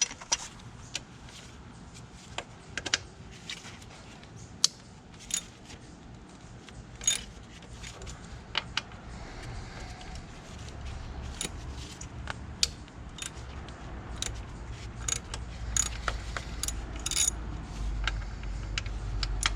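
Hand tools clinking against metal on a motorcycle's rear hub: irregular sharp metallic clicks and taps, a few seconds apart. A low hum builds up in the second half.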